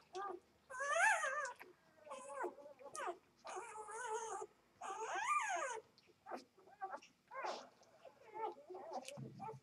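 Two-day-old Vizsla x Labrador puppies crying while they nurse: a string of high, wavering, mewing squeals, the longest lasting about a second each, several in the first six seconds, then shorter squeaks. A brief low bump comes near the end.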